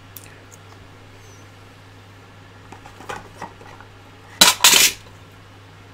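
Metal hand tools clattering against each other in a plastic tool tray, a short loud rattle a little over four seconds in. Before it come a few light clicks of small plastic printer parts being handled on the table.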